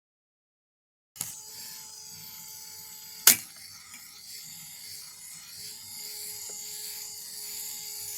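Small electric motor of a homemade Lego ceiling fan running with a steady whirr and faint whine, starting about a second in. One loud sharp knock comes about two seconds after it starts.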